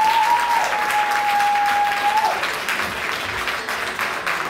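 Audience applauding after the set ends. Over the first two seconds someone holds a long whoop, which bends and stops about two seconds in.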